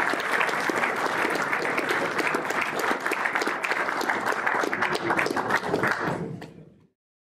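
An audience applauding, a dense steady clapping that fades out near the end.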